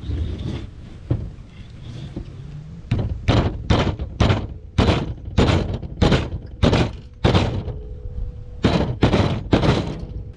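Rubber mallet striking a wooden stick to drive it into the end of a log. A few light taps give way to a run of loud, dull knocks about two a second, with a short pause before the last three.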